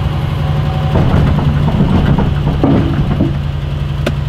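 Vehicle engine idling steadily, with a stretch of irregular knocking and rattling from about one to three seconds in.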